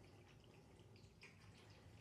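Faint trickling and dripping of water from the spout of a running 3.5 L stainless steel GNGPet pet water fountain, with a faint low hum underneath.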